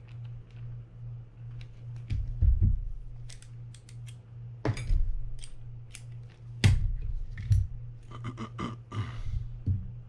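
Small metallic clicks and several louder knocks as a Penn Spinfisher 750SS spinning reel and its small parts and tools are handled on the bench, with a quick run of ticks near the end, over a steady low hum.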